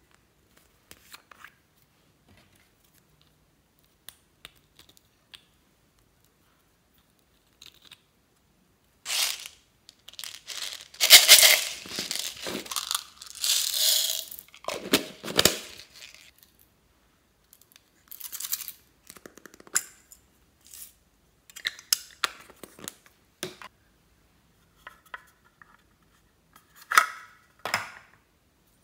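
Small beads rattling as they pour out of a plastic container onto slime, a dense run of rattling in the middle that is the loudest part. Scattered light plastic clicks and taps from handling small containers come before and after it.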